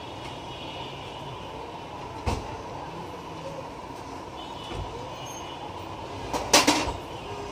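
Steady background rumble with a faint steady tone. A single sharp knock comes about two seconds in, and a short, louder run of clattering knocks comes near the end.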